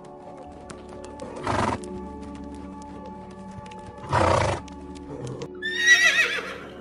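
Horse snorting twice, then giving a high, quavering whinny near the end, over background music with sustained tones.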